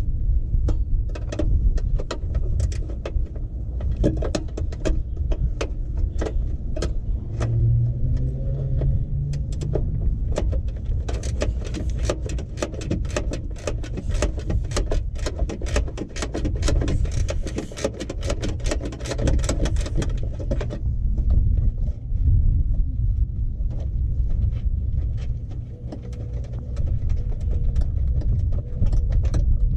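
Metal hand tools clicking and clattering against the truck's headlight mounting, with a dense run of rapid clicks through the middle, over a steady low rumble.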